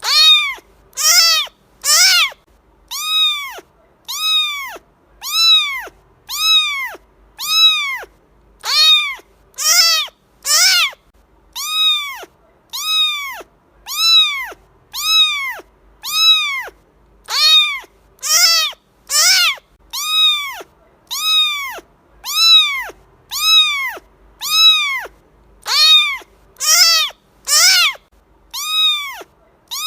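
Cat meowing over and over, a high meow about once a second, each call rising and then falling in pitch.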